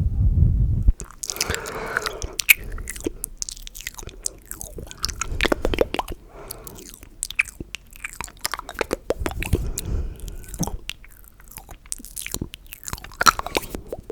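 Close-miked ASMR mouth sounds: many irregular wet clicks and smacks of lips and tongue, with a low breathy puff on the microphone at the start and again past the middle.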